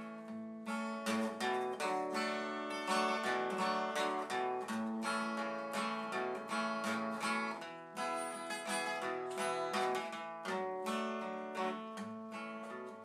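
Background music: an acoustic guitar instrumental break between sung verses, with strummed and picked chords.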